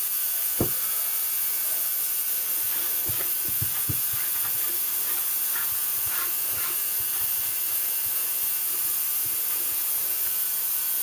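Steady, even hiss with a few faint clicks and taps scattered through it.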